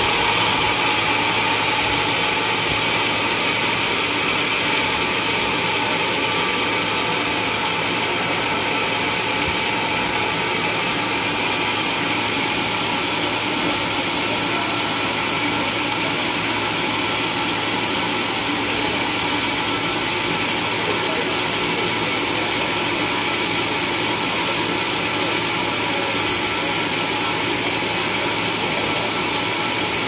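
Band sawmill running steadily, its band blade turning free between cuts with a constant hum and a high whine, no wood being cut.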